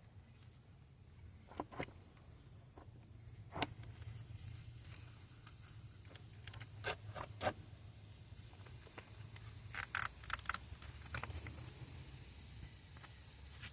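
Scattered clicks, taps and light scrapes of hand tools and metal parts being handled while installing a car starter, with a cluster of quick clicks about ten seconds in, over a low steady hum.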